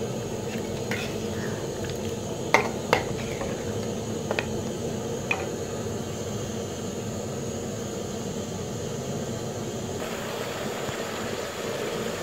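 Metal spoon stirring mutton curry in an aluminium pot, with a few sharp clinks and knocks against the pot between about two and a half and five and a half seconds in, over a steady hiss of the curry simmering.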